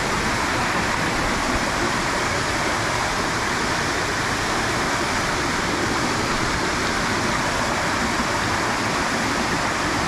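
Steady rush of falling and flowing water from a waterfall and the rocky stream below it.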